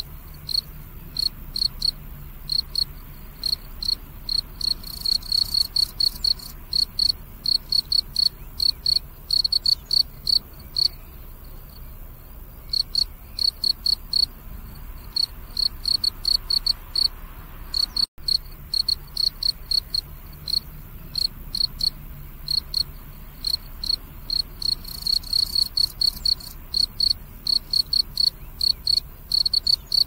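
Field cricket chirping: short pulsed chirps, several a second, all at one steady high pitch, with a couple of pauses of a second or two.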